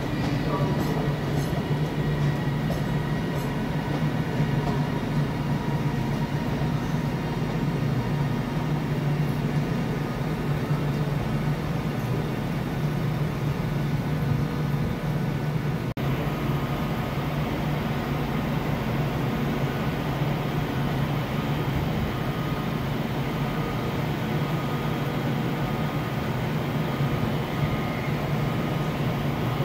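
Passenger train at a station platform running with a steady low hum that holds unchanged, with a brief drop about halfway through.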